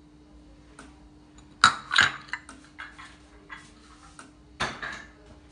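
Light clicks and knocks against a stainless steel stand-mixer bowl as egg whites are tipped into it: a sharp pair about a second and a half in, softer ticks after, and another pair near the end.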